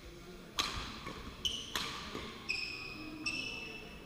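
Badminton racket striking the shuttlecock twice, the first hit about half a second in being the loudest, then three short high squeaks of court shoes on the sports-hall floor.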